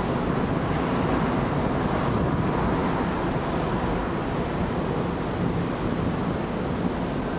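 Steady city street traffic noise, cars driving past on the road.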